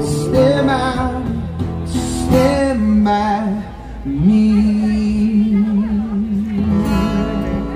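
A male singer performing live with an acoustic guitar through stage speakers, singing a slow melody; about four seconds in he slides up into a long held note that lasts about three seconds.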